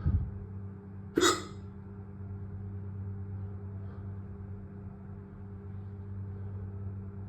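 A single short, sharp hiccup about a second in, from a bout of hiccups that has gone on for about 20 minutes. A low thump comes right at the start, with a steady low hum behind both.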